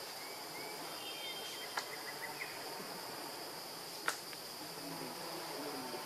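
Steady high-pitched drone of insects in the surrounding vegetation, with two sharp clicks about two seconds in and again about four seconds in, and a few faint short chirps early on.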